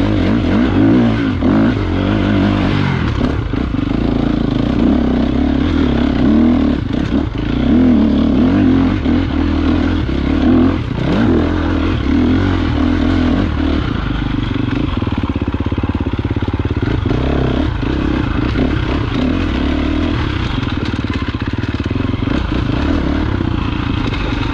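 Enduro motorcycle engine being ridden off-road, the revs rising and falling through the first half and running steadier in the second half.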